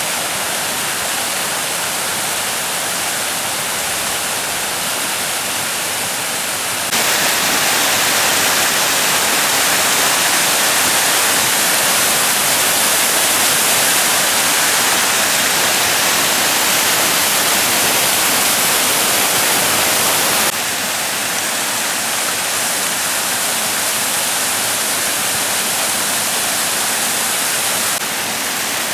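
Steady rush of water falling at a largely frozen waterfall. The level steps up abruptly about seven seconds in and drops back about two-thirds of the way through.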